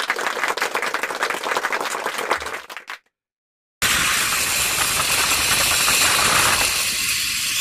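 A dense patter of clapping, an applause sound effect, that cuts off abruptly about three seconds in. After a moment of silence comes the steady rush of a zipline ride: the trolley running along the steel cable, with wind on the microphone.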